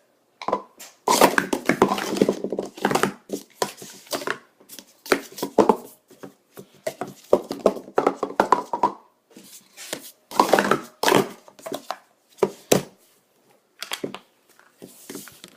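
Speed Stacks Pro Series plastic sport-stacking cups being stacked up and down fast. It is a rapid clatter of cups clicking and knocking together, in several quick flurries with short pauses between them.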